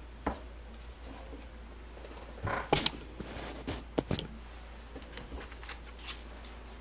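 Tarot cards being handled on a table: a few scattered soft taps and flicks, most of them a couple of seconds in, over a low steady hum.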